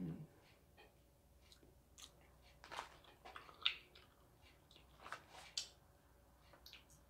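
Faint mouth sounds of biting and chewing Apollo sugar-straw candy, sweet paste in thin plastic straws: scattered short crackles and clicks, the loudest a little past the middle.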